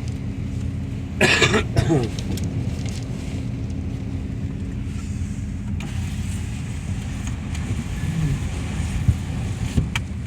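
Steady low rumble of a car's running engine and wind and rain on the car, heard from inside the cabin. About a second in there is a brief voice-like sound, and near the end a couple of sharp clicks.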